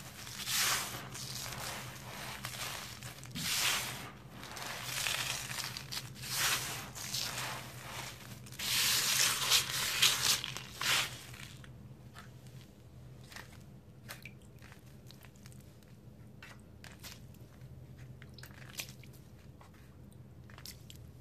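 Dry sand-and-cement chunks crumbled and crushed in the hands, giving gritty crunching in a run of separate squeezes. After about eleven seconds the crunching stops and only quieter, scattered ticks remain, as drops land on the powder.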